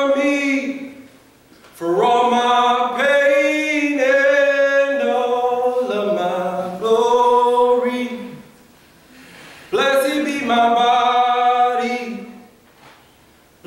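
A man singing unaccompanied, long held notes in several phrases broken by short pauses for breath.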